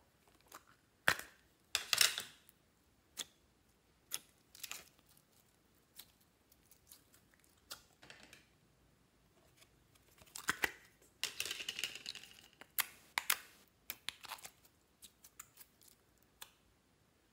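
Hands handling a plastic slime tub and squishing slime in a tray of mixed slime: scattered plastic clicks and short sticky squelches and crackles. The longest squelching stretch comes about two-thirds of the way through.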